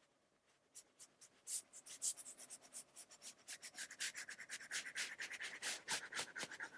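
Stylus tip rubbing over an iPad screen in quick back-and-forth scrubbing strokes, starting about a second in and growing denser, as sketch guidelines are erased in Procreate.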